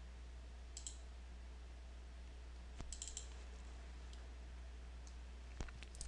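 Faint computer mouse clicks: a quick double click about a second in, a few more clicks around three seconds and near the end, over a low steady hum.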